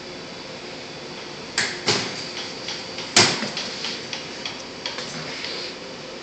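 Knocks and clicks from a ride-on rolling tool cart as it jerks and turns: two knocks, then the loudest sharp knock about three seconds in, followed by lighter irregular ticks that trail off. Under it runs a steady hum.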